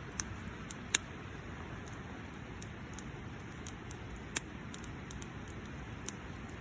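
Wood campfire burning with a low steady rush and irregular sharp crackles and pops, the loudest about a second in and again just past four seconds.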